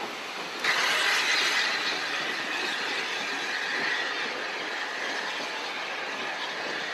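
Steam locomotive letting off steam: a loud, steady hiss that starts suddenly under a second in and carries on evenly.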